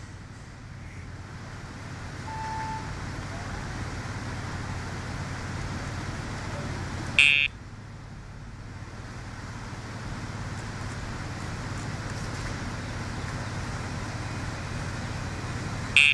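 Dogtra e-collar sound box buzzing when the pager is pressed: two brief, loud, high-pitched buzzes, one about seven seconds in and one at the very end, over steady traffic noise. The buzz is the pager cue that goes with each command to the dog.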